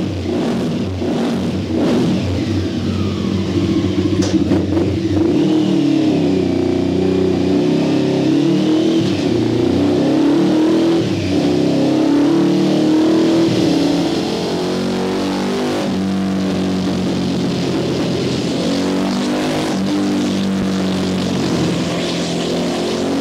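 Tuned Honda CB500 parallel-twin engine running loud on a rolling-road dyno under light load, being run in fresh from a rebuild so the piston rings seal. The revs rise and fall for the first part, then settle to a steadier, lower note about fourteen seconds in.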